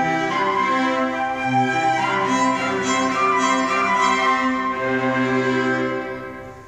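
Small chamber quartet of flute, violin, a second upper bowed string and cello playing sustained notes together; the music fades and ends about six seconds in.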